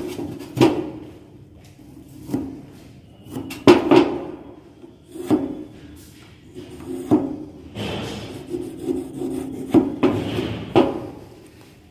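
A wooden workpiece and a steel rule being handled: scattered light knocks and taps of wood, about eight in all, with rubbing, scraping strokes in between.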